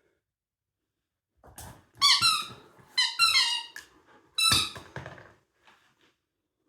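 Squeaky döner-shaped dog toy being squeezed, giving a quick run of five or so loud, high squeaks over about three seconds.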